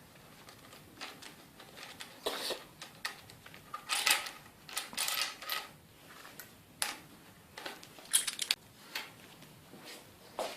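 Metal bicycle parts and tools being handled on a workbench: irregular clicks, clinks and short clattering rattles, busiest around the middle and again later on.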